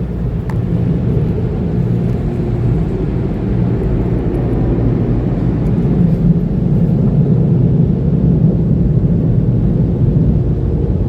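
Steady, loud low rumble of a moving vehicle.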